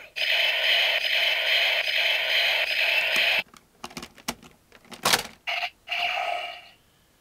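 Electronic toy sound effect playing from a small speaker, cutting off about three and a half seconds in. Then come plastic clicks and a sharp snap as a Ranger Key is pushed into a second toy, which answers with a short electronic tone.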